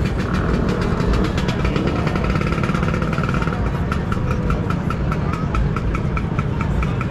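Motor scooter engines running, a steady low rumble. A quick regular pulse, about four a second, joins about halfway through.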